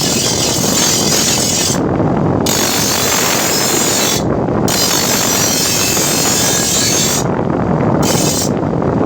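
Power grinder running steadily while a steel chaff cutter blade is sharpened against it. The high grinding hiss drops out briefly four times as a lower running sound carries on.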